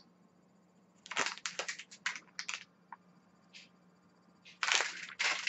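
Thin clear plastic bag crinkling as it is handled: a burst of crackles about a second in and another near the end.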